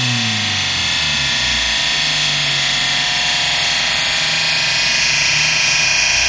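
Ford Capri Mk1's overhead-cam engine dropping off from high revs about a second in as the dyno pull ends, then running low. Throughout there is a steady rushing noise with a high whine.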